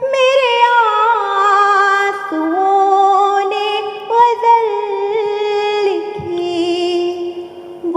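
A woman singing a line of an Urdu ghazal in tarannum, the sung style of recitation, stretching the words over long, wavering held notes. The melody glides downward in the first couple of seconds, then drops to a lower note and holds.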